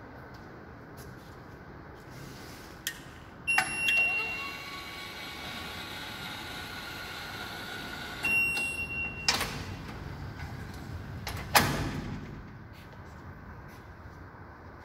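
Promeba PB-440 ambulance stretcher platform's carriage sliding along its stainless-steel rails: a sharp click, then a few seconds of ringing, scraping metal as it slides, then clicks and two loud metal clunks as it is set in its standby position for loading.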